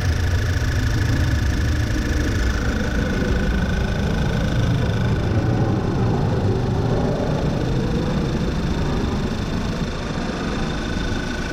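2010 VW Tiguan's 2.0 TSI turbocharged four-cylinder engine idling steadily and running smooth with its PCV system disabled, no misfires, with a steady high tone alongside.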